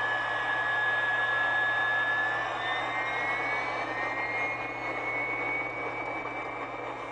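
Jet aircraft engine noise: a steady rush with a high whine that slowly rises in pitch, fading a little toward the end.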